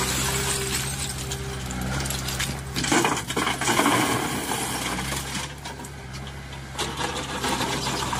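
A JCB 3DX backhoe loader's diesel engine runs steadily. About three seconds in, a bucketful of broken rock is dumped into a steel tractor trolley, and the stones crash and clatter against the metal bed for about a second and a half.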